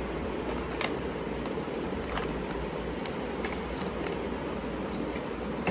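Steady rushing background noise in a room, with a few faint light taps and rustles as a paper shopping bag and a boxed GoPro are handled.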